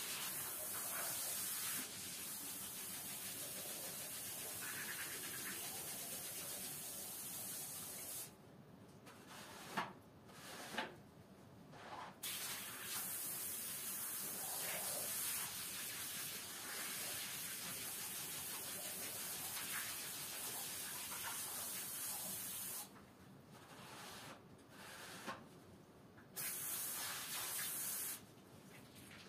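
Water spraying from a garden hose nozzle onto a rug: a steady hiss in long stretches, broken by a few short pauses.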